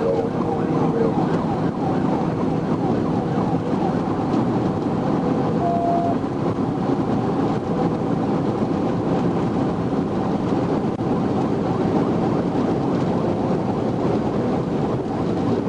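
Police patrol car's siren wailing over steady, loud road and wind noise during a high-speed pursuit at around 120 to 140 mph.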